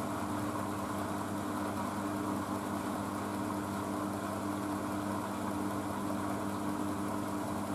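Blomberg WNF9448 washing machine spinning its drum steadily at about 300 rpm, an even motor hum with a steady low whine.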